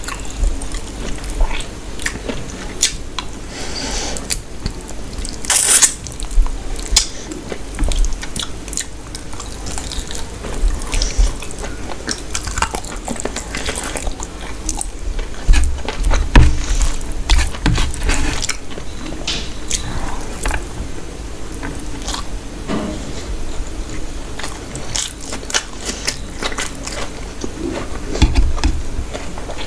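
Close-miked wet eating sounds: chewing and lip smacking on duck curry and rice, with irregular sticky clicks and squelches from fingers mixing rice into the gravy.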